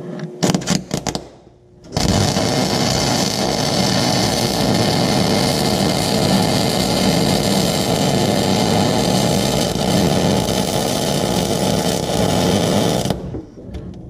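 MIG welder arc welding a crack in a steel backhoe frame: a few short starts in the first second or so, then one continuous bead of about eleven seconds that stops about a second before the end.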